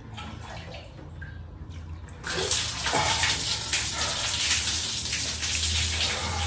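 Water poured from a plastic dipper over a person's head and splashing down, as in a bucket-and-dipper (tabo) shower. It is quiet for about the first two seconds, then the pouring starts suddenly and runs on as a loud, even splashing rush.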